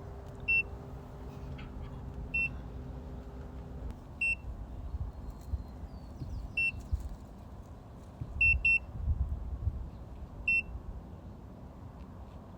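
Electronic RV door smart lock giving a short high beep each time a thumb is pressed on its fingerprint reader to enroll it: seven beeps, about one every two seconds, with a quick double beep near the end.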